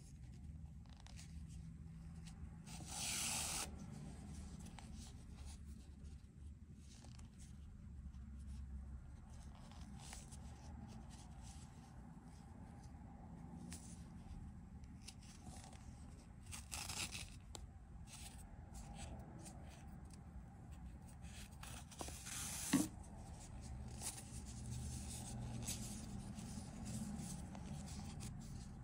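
Faint rustling and scraping of yarn and a metal crochet hook worked through the stitches in hand, over a low steady hum. Louder rustles come about 3 and 17 seconds in, and a sharp click a little after 22 seconds.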